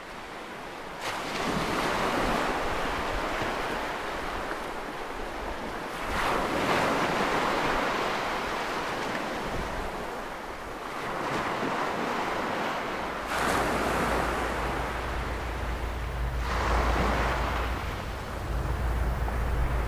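Ocean surf: waves breaking and washing in, the noise swelling and fading every few seconds. About two-thirds of the way in, a deep, steady low rumble joins underneath.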